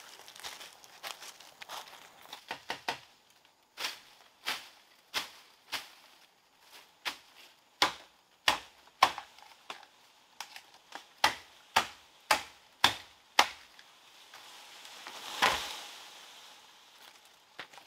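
Machete chopping at bamboo stems: a long run of sharp chops, about one to two a second. Near the end comes a longer swell of rustling noise.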